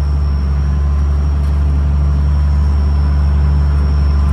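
Excavator's diesel engine running steadily while the machine tracks across the field, heard from the cab, with a thin steady high whine above the engine drone.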